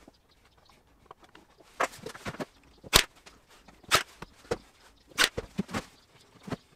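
Ryobi AirStrike cordless nailer firing nails into a 12 mm plywood drawer box, heard as a run of sharp clacks. The loudest three come roughly a second apart, mixed with knocks from handling the box and tool.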